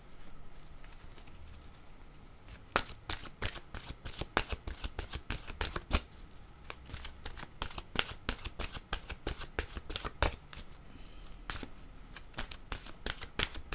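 Deck of oracle cards being shuffled by hand: a quiet start, then a long run of quick, irregular card clicks and flicks, several a second, as a card is sought.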